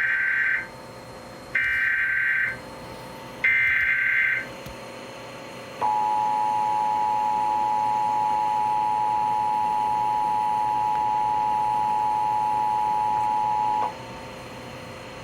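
Emergency Alert System SAME header: three one-second bursts of warbling digital data tones, each about two seconds apart, followed by the two-tone attention signal held steady for about eight seconds and then cutting off abruptly.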